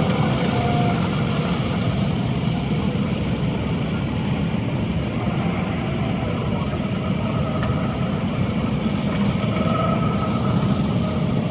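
Go-kart engines running steadily as the karts lap the track.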